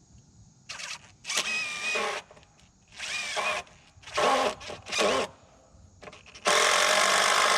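Handheld power drill run in several short bursts, its pitch dipping and rising, then held running steadily for about three seconds near the end.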